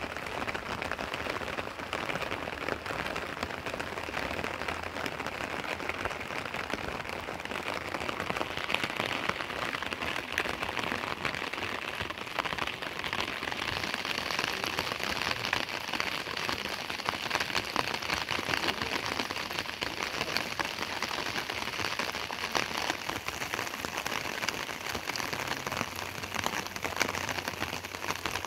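Steady rain falling, a dense even hiss of many fine drops.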